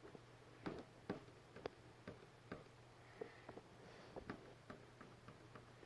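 Near silence: room tone with a faint steady hum and a scattering of faint, irregular clicks.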